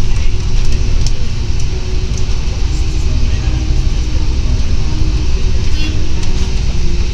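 Steady low rumble of a moving double-decker bus, engine and road noise heard from the upper deck.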